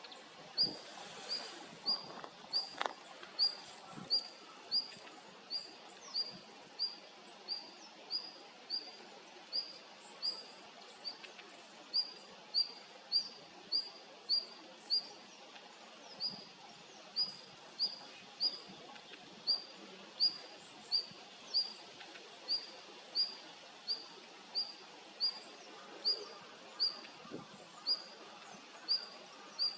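A female red-flanked bluetail calling: a short high note repeated over and over at about three notes every two seconds, with a few brief pauses.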